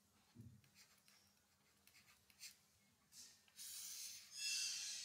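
Faint scratching of a stylus writing on a pen tablet: short scattered strokes, then a longer, louder scratch from about three and a half seconds in.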